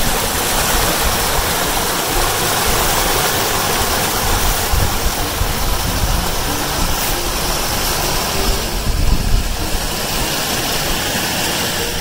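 Water from a small rock waterfall splashing into a koi pond: a steady rushing hiss.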